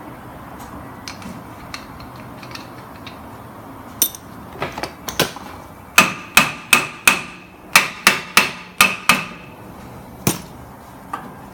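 Hammer striking metal with a ringing clang: a few lighter taps about four seconds in, then a quick run of about ten sharp blows, and one more near the end.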